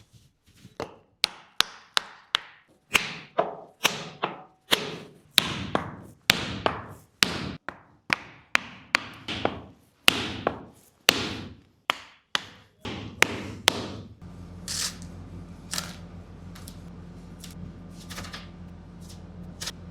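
A cricket bat being struck hard again and again, about two knocks a second, each with a short ringing tail. About fourteen seconds in a steady machine hum starts, and a few more knocks come over it.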